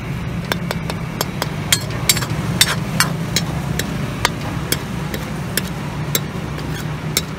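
A metal spatula clanks and scrapes against a large metal wok as noodles are stirred and tossed. The knocks are irregular, about two or three a second, over a steady low hum.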